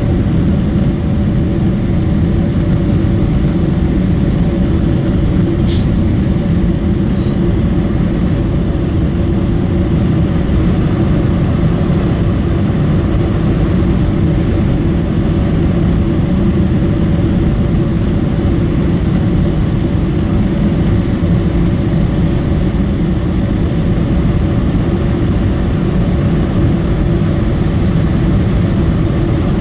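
Cabin noise inside a Boeing 747-400 on approach with flaps extended: the steady rumble of its four Rolls-Royce RB211-524 engines and the airflow, with a faint click about six seconds in.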